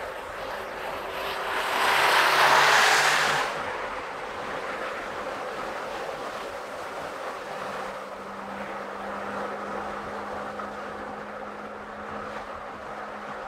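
Car driving with steady road and tyre noise. About two seconds in, another vehicle rushes past for a second or so. From about eight seconds in, a low steady hum runs under the road noise.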